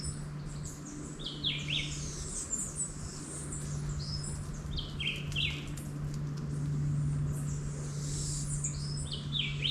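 Several wild birds calling in forest, short chirps and whistled notes overlapping one after another, over a faint steady low hum.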